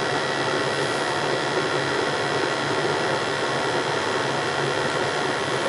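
Ruud 80+ gas furnace running with its burners lit: a steady, loud rushing noise with a faint whine over it. It is firing with the gas valve turned up as far as it goes, on what the technician takes for low gas pressure.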